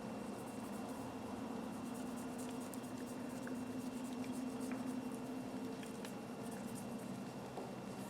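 Faint rubbing and light scattered ticks of wax being worked onto the metal of a small pair of pliers (end cutters), over a steady low hum.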